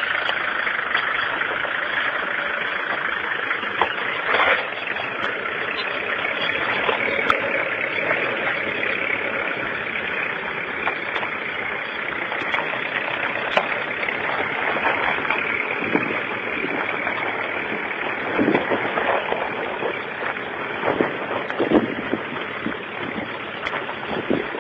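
Nissan 4x4 SUV's engine running at low revs as it creeps along a rutted dirt track, with scattered knocks now and then.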